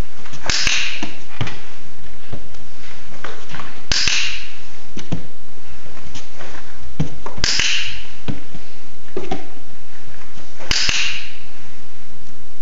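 Dog-training clicker clicking four times, about every three and a half seconds, marking the puppy's behaviour on the platform for a reward. Fainter small knocks come in between.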